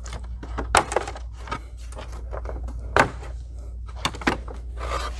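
Plastic engine cover of a Ford Mustang GT being pulled up off its mounts and handled: a few sharp clicks and knocks with some rustling, over a steady low hum.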